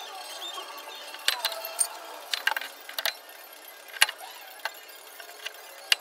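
A handful of sharp, irregular metallic clinks and knocks from tools and suspension parts being handled at a car's front steering knuckle and lower ball joint, the sharpest about four seconds in.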